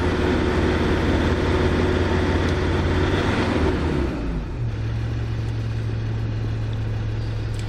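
Land Rover Discovery 2 Td5 five-cylinder turbodiesel held at raised revs, then dropping back to a steady idle about four and a half seconds in, heard from inside the cabin.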